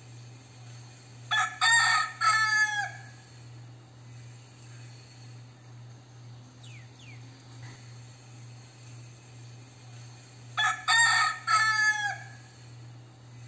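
Crossbred gamecock rooster crowing twice, about nine seconds apart. Each crow is broken into a few short notes and ends in a longer note that trails off.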